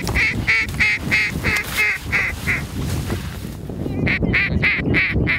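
Mallard hen quacks in an even series of about three a second: nine in a row, a pause of over a second, then five more. Steady wind rumbles on the microphone throughout.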